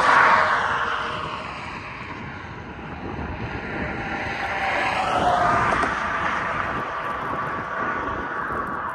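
A passing motor, loud at first with its pitch sliding down as it moves away, then a second pass swelling about five seconds in.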